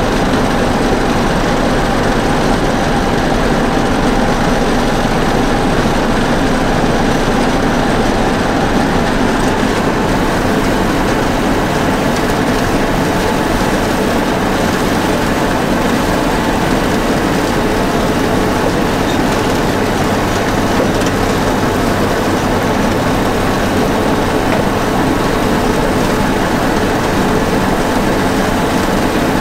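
International 856 tractor engine running steadily as it tows a New Holland 36 pull-behind forage chopper and wagon, with the rattle of the chopper and wagon running gear over the engine.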